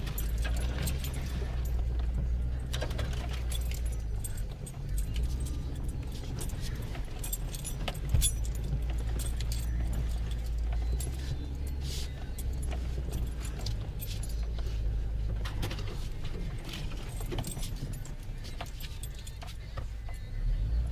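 Low, steady rumble of an off-road vehicle's engine and drivetrain, with loose rattling and clicking over it and one sharp knock about eight seconds in.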